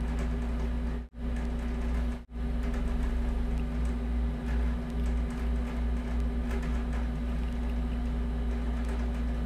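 Steady low background hum, broken by two short sudden gaps in the first few seconds.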